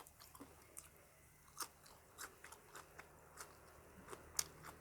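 A person chewing crunchy fresh vegetables: faint crunches and sharp mouth clicks every half second or so.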